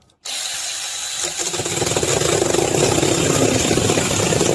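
Mini chainsaw switched on with a sudden start and running with a steady high motor whine, then about a second in biting into a piece of firewood, getting louder and grittier as it cuts.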